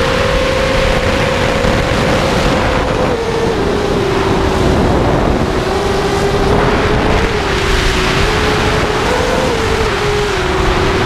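Onboard sound of a 5-inch FPV racing quadcopter in flight: the whine of its F40 2300kv brushless motors spinning 5x4.5 bullnose props, under wind rush on the microphone. The whine drops in pitch about three seconds in and climbs again near the end as the throttle changes.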